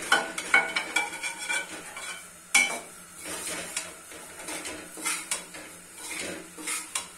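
Steel slotted spoon stirring and scraping semolina roasting in ghee around a stainless steel karahi, with metal-on-metal clinks that make the pan ring briefly. The loudest clink comes about two and a half seconds in; after it the scraping is softer.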